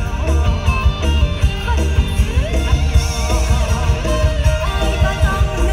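Live Isan mor lam band music played loud over a concert PA: a steady pounding bass beat under a singing voice with wavering, ornamented lines.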